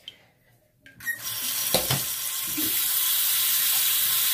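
Water tap turned on about a second in, water running steadily into a sink, with a single knock shortly after it starts.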